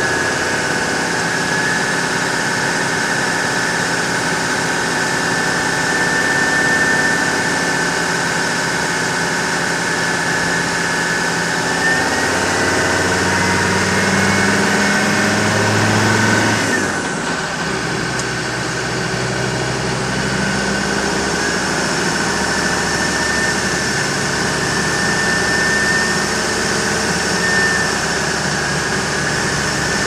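Tuned Land Rover Defender Td5 five-cylinder turbodiesel running under way, with a steady high turbo whistle over the engine note. Just past halfway the whistle rises a little, then the engine note and whistle drop for a moment before building again.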